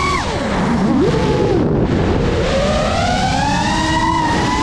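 FPV quadcopter's electric motors whining, the pitch dropping sharply in the first second as the throttle is cut, then climbing gradually as the throttle comes back up.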